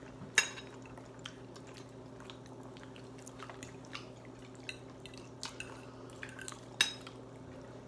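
Metal forks clicking against plates during a meal, with a sharper clink about half a second in and another near the end, over a faint steady hum.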